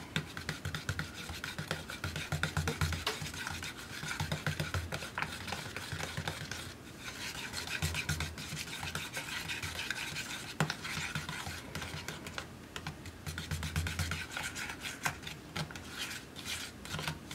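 Metal knife stirring thick paint in a small plastic cup, blending black into purple: a steady run of quick scrapes and taps against the cup, with a short pause about seven seconds in and one sharp knock near eleven seconds.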